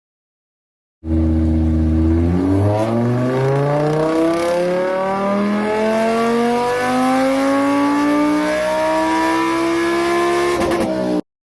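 Car engine accelerating: after a brief steady note it climbs smoothly and continuously in pitch for about nine seconds, with no gear change heard, then cuts off suddenly near the end.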